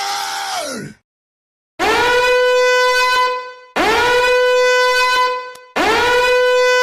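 Meme sound effect: three identical long horn-like blasts, each scooping up into a steady held note for about two seconds. Before them, a short sound that slides down in pitch at its end.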